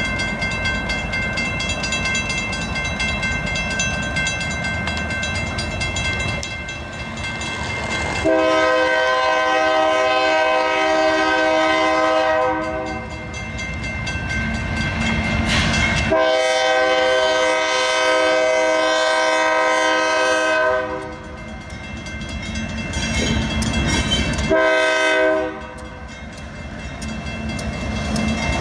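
Union Pacific GE AC4400CW diesel locomotive blowing its horn for a grade crossing in the standard pattern: two long blasts, one short and a final long one, beginning about eight seconds in, over the rumble of the approaching train. Before the horn starts, a crossing bell rings over the train noise.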